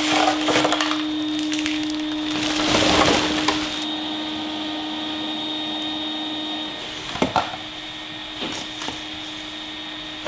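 An electric motor runs steadily with a constant hum and a high whine. Over it comes crackling and clattering, heaviest in the first four seconds, and a few sharp clicks follow later. The motor stops abruptly at the end.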